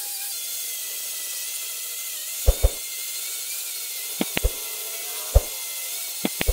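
Angle grinder with a sanding disc running with a steady high whine as it sands the wooden slats of an old bed headboard. Several sharp knocks come at irregular intervals through the second half.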